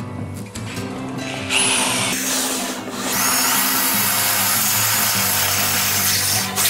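Cordless drill running in short bursts, with a brief rising whine about a second and a half in and a longer run from about three seconds in, over steady background music.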